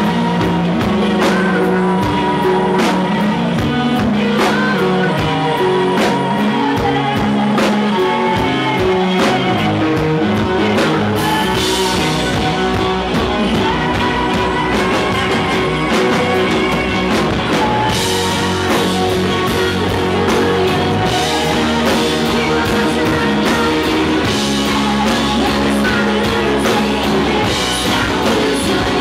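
Live rock band playing: distorted electric guitars and a drum kit, with a woman singing lead.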